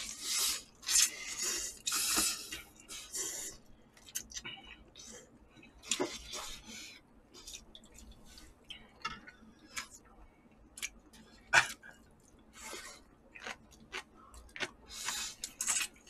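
People slurping instant ramyeon noodles and chewing, with small clicks of chopsticks and spoons against the bowls. Slurping comes in several bursts over the first few seconds and again near the end, with scattered clicks between them and one louder click about two-thirds of the way through.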